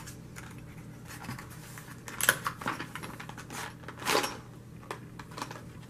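Hands working open a glued-shut product box: several short scraping rustles of cardboard and plastic packaging, loudest a little after two seconds and again around four seconds.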